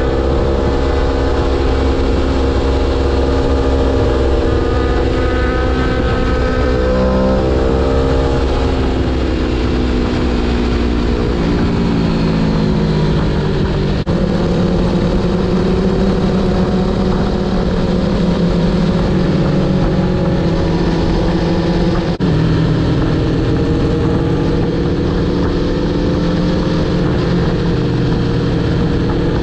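Aprilia Tuono V4 1100 Factory's V4 engine running while riding. The engine note is steady, drops over a few seconds around ten seconds in as the bike slows, then holds steady again.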